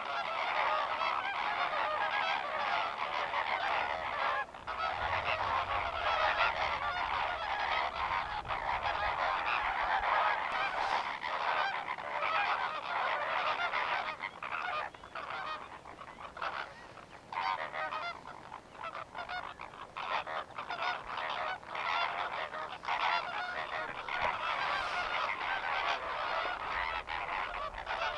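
A large flock of greater flamingos calling together during their group courtship display: a dense, continuous honking chatter that thins out for a few seconds past the middle.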